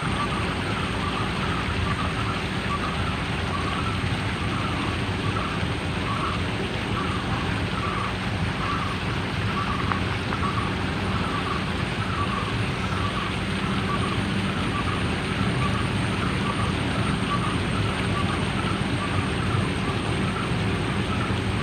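Dawn ambience: a steady rushing hiss with a faint low hum under it, and a short call repeated over and over, about one and a half times a second.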